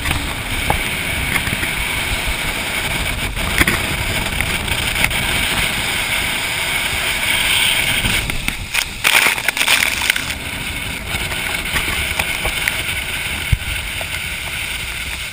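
Jet boat running fast on a river: a loud, steady rush of engine, wind and water, with the spray growing louder as the boat runs through a rapid about halfway through.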